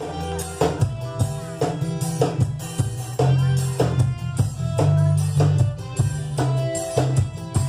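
A forró band playing live: a drum kit beat over a heavy bass line, with sustained melodic notes above.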